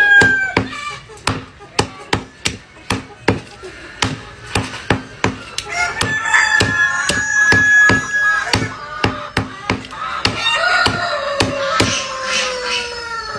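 Meat cleaver chopping raw chicken on a thick wooden chopping block: steady sharp chops, about two to three a second. A rooster crows twice in the background.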